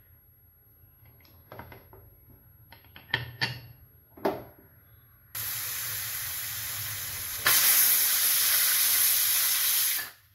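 A few light knocks, then about five seconds in, a pressure cooker's weight valve starts blowing off steam with a steady hiss that grows louder about halfway through and cuts off suddenly near the end: the cooker's whistle, the sign it has come up to pressure.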